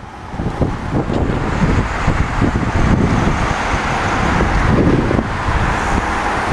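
Strong gusty wind buffeting the microphone, over the steady noise of cars passing on a multi-lane road.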